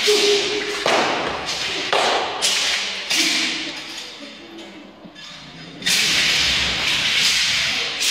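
Kung fu broadsword form: a run of sudden swishes of the dao and thuds of footwork, several in quick succession, easing off about halfway through before a long loud stretch near the end.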